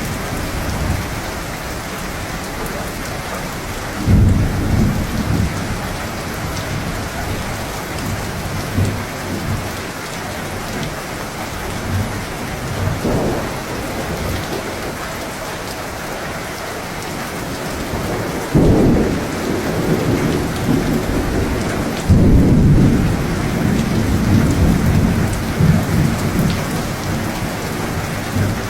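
Steady heavy rain on surfaces, with thunder: three sudden claps, about four seconds in, near two-thirds of the way and again a few seconds later, each rolling on into a low rumble.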